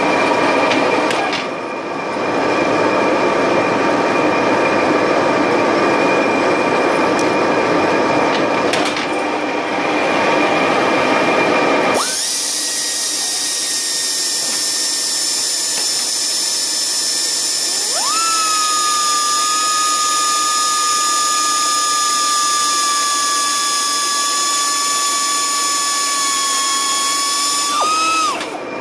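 CNC lathe running through a turning cycle: steady machining noise with a hum of tones, changing abruptly about twelve seconds in to a higher hiss, then a steady high whine sets in around six seconds later and stops near the end.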